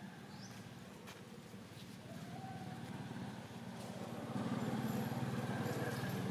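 A motor vehicle's engine running with a low, pulsing sound, growing louder about four seconds in.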